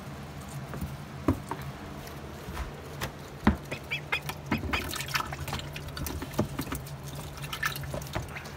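Welsh Harlequin ducklings dabbling: their bills click and slurp in the water of a plastic waterer and peck at pieces of watermelon, busiest in the second half. A steady low hum runs underneath.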